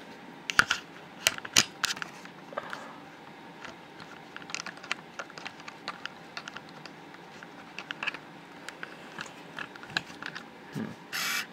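Handling noise: scattered small clicks, taps and rustles as the camera is moved about, with a short louder rustle near the end.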